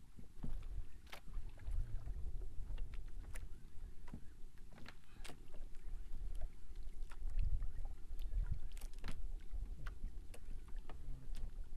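Low wind rumble on the microphone with irregular knocks and clicks from a small wooden outrigger canoe and its fishing tackle, with no engine running.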